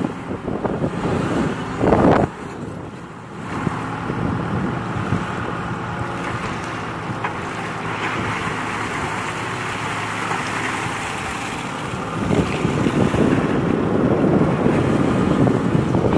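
Kato HD512E excavator's diesel engine running steadily under hydraulic load as the bucket digs mud under water. Gusts of wind hit the microphone about two seconds in and again over the last few seconds.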